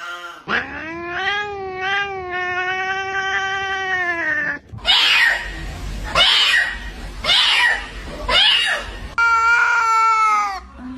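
Domestic cat yowling: one long, wavering howl of about four seconds, then four loud, harsh calls about a second apart, and a steadier drawn-out call near the end.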